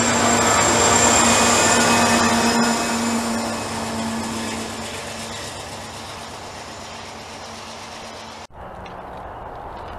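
Intermodal freight train rolling past, its steel wheels squealing in steady high tones over the noise of the cars. The sound is loudest about a second in and then fades. It breaks off abruptly near the end to a quieter low rumble.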